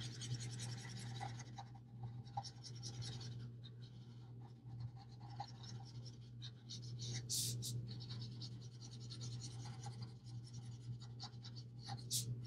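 Ohuhu alcohol marker stroking and scratching across coloring-book paper in quick repeated strokes, faint, with a couple of sharper strokes about seven and twelve seconds in.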